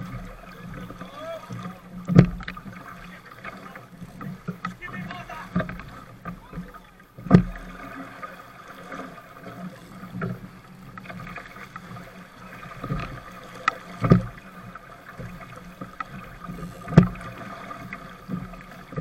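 A small sailboat's hull running through choppy water, with water rushing and splashing along it and a few sharp slaps or knocks every few seconds, the loudest about seven seconds in and about fourteen seconds in.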